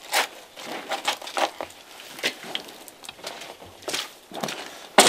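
A metal shovel scraping and scooping wet mud mixed with broken pottery shards: a series of uneven scrapes and crunches.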